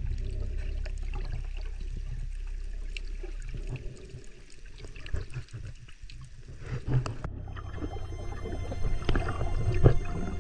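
Underwater sound picked up by a snorkeler's camera: a muffled low rumble of moving water with scattered small clicks and crackles. About seven seconds in it changes abruptly and grows louder and busier, with more knocks and crackling from water and bubbles against the housing.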